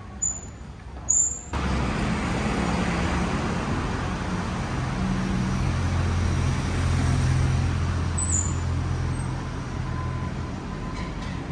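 Street traffic noise: a motor vehicle's engine running close by over road noise. It starts abruptly about a second and a half in and swells to its loudest in the middle.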